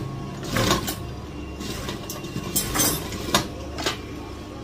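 Industrial sewing machine running, its motor humming steadily, with a few short bursts of stitching as the blouse fabric is fed under the needle.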